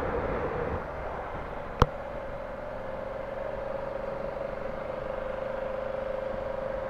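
Honda Africa Twin motorcycle running at a steady cruise, heard as a steady engine hum over wind and road noise. There is a single sharp click about two seconds in.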